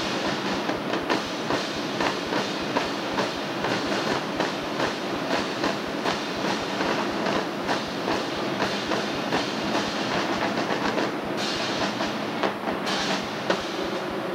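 Marching drumline of snare drums and marching bass drums playing a fast, steady cadence, the strokes closely packed and evenly repeating. Near the end come a couple of brief, brighter bursts of hiss.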